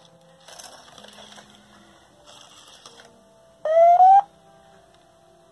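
Sony AIBO ERS-7 robot dog's servo motors whirring in two short spells as it moves its legs and head, then about three and a half seconds in a loud electronic tone rising in pitch for over half a second. The motors are straining against an obstruction, which the robot itself reports as something blocking its motors.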